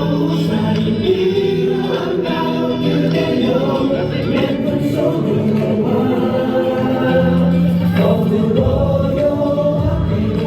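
Male vocal group singing live over a backing track through a venue's sound system, several voices holding notes together.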